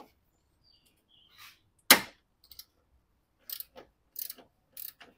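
Hand tools working on the battery tray's 13 mm bolts: a series of short, sharp clicks and knocks, the loudest about two seconds in.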